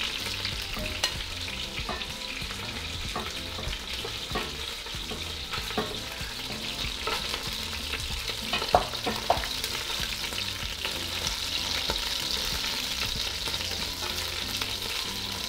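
Chicken pieces and oil sizzling steadily in a hot Dutch oven, with a few scattered clicks and knocks against the pot while the browned pieces are lifted out. The loudest clicks come about nine seconds in.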